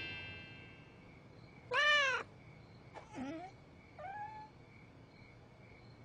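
Cartoon cat meowing: one loud meow about two seconds in, its pitch rising then falling, followed by two shorter, quieter meows.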